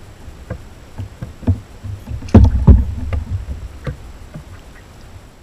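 Ducklings splashing and diving in a shallow plastic wading pool, water slapping and sloshing against a GoPro at the waterline, in a run of short splashes with two loud thuds about two and a half seconds in.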